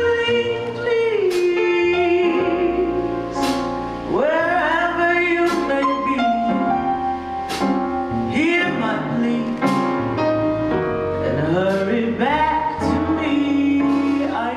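A woman singing a slow jazz ballad with long, held notes that glide between pitches, over piano accompaniment.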